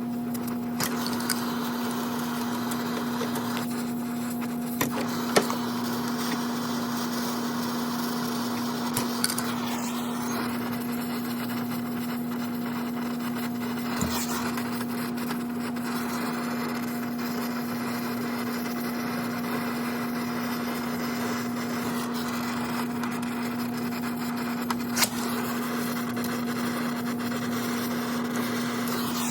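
Brazing torch flame burning steadily as a refrigerant line joint on a swapped refrigerator compressor is brazed: a constant rushing hiss over a steady low hum, with a few sharp clicks and taps.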